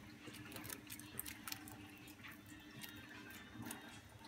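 Faint scattered light clicks and ticks of small parts and tools being handled on a workbench, over a faint steady low hum.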